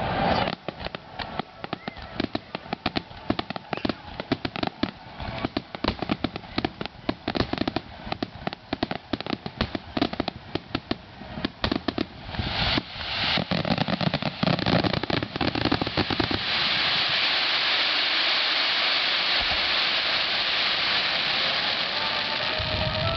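Aerial fireworks finale: a rapid, dense run of sharp cracks and pops. About two-thirds of the way in it merges into one continuous loud crackling hiss.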